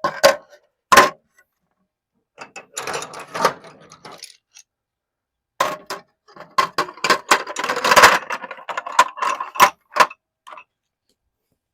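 Metal hand tools, ratchets and wrenches, clinking and clattering against each other as they are handled in a steel toolbox drawer: two sharp clinks at the start, a short burst a few seconds in, then a longer run of jangling from about five and a half to ten seconds in.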